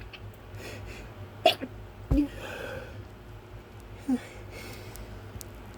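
A man's short, sharp breath catches and sniffs, three of them (about a second and a half in, just after two seconds, and about four seconds in), with a breathy exhale after the second. His nose is tickled by pepper he feels is stuck in it.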